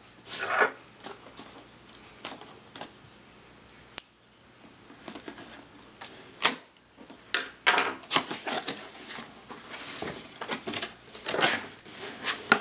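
A cardboard box being handled and opened: tapping and scraping as it is turned, then a small blade slitting the top seal and the flaps pulled open, with irregular clicks, scrapes and rustles that grow busier in the second half.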